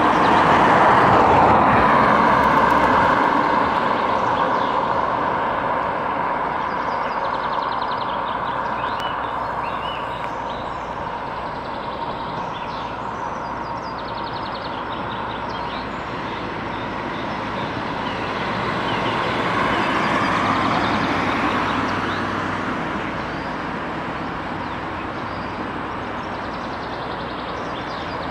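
Street traffic noise: a vehicle passes close by just as it begins, swelling and fading away, and another swells past about twenty seconds in, over a steady roadway hum.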